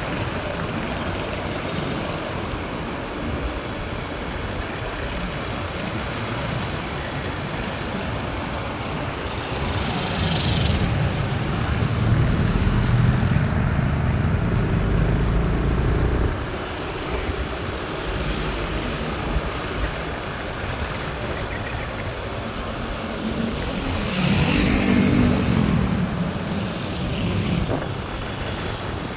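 Motorcycle riding through city traffic, heard from the rider's seat: steady engine and road noise among passing cars. The rumble swells louder twice, about ten seconds in and again near twenty-four seconds in.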